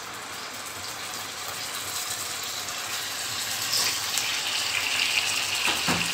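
Marinated chicken pieces sizzling as they shallow-fry slowly on low heat in a little oil in a nonstick pan. The sizzle grows louder and brighter once a second piece is laid in about four seconds in, with a short knock near the end.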